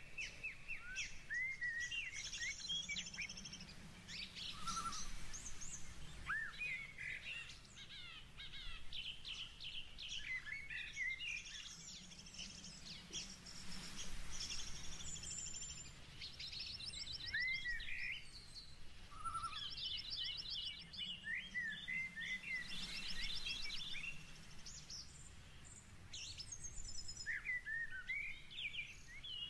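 Songbirds chirping and trilling, faint, in clusters of quick repeated notes, over a low steady background hum.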